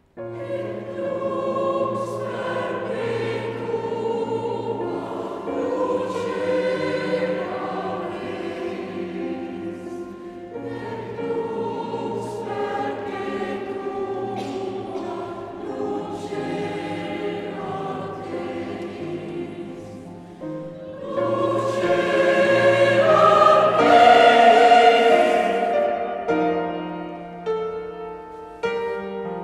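Large mixed choir singing a requiem movement in several parts. The choir comes in suddenly at full voice, swells to a loud climax about three-quarters of the way through, then fades away.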